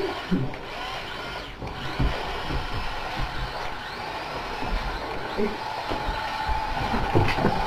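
Radio-controlled toy tank's small electric drive motors whirring steadily as it drives across the floor, with scattered low knocks.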